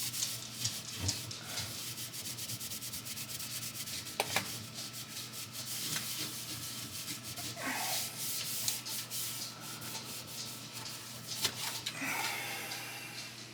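Rag loaded with baking soda paste scrubbing grease off a kitchen range hood: a rasping rub in rapid back-and-forth strokes.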